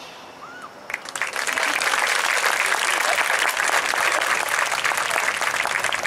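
Audience applauding with many hands clapping, starting about a second in and then holding steady.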